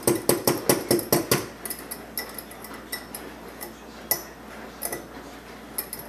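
A utensil clinking against a cup as a raw egg is beaten in it: a quick run of clinks for about the first second and a half, then scattered single clinks.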